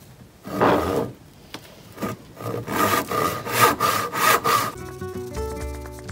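Hand saw cutting through wood in a run of rasping back-and-forth strokes, coming quicker partway through. Background music comes in near the end.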